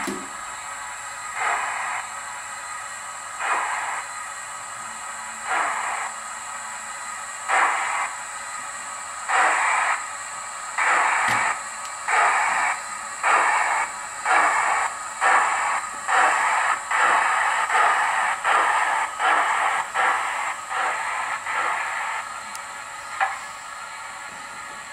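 DCC sound decoder playing Bulleid Merchant Navy steam locomotive exhaust through a 00 gauge model's small speaker. The chuffs start about two seconds apart and quicken steadily as the model pulls away, over a constant hiss. Near the end they fade off.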